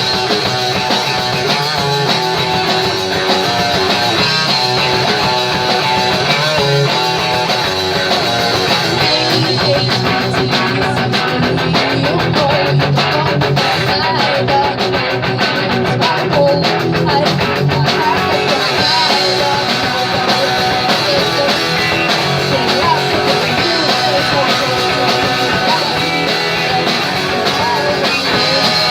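Punk rock band playing live, guitar-driven, loud and steady throughout.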